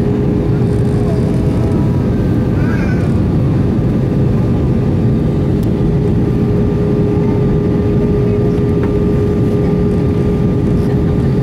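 Airbus A320 cabin noise in flight: a steady, loud rumble of engines and airflow with a constant hum.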